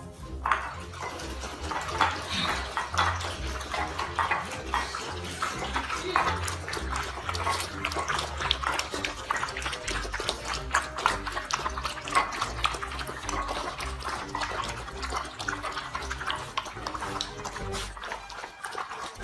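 Several puppies eating soft, wet food from bowls: a dense, continuous run of lapping, slurping and smacking.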